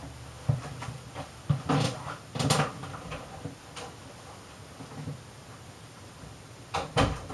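Several knocks and clunks, like a door or cupboard being handled: a few over the first three seconds, then a close pair near the end.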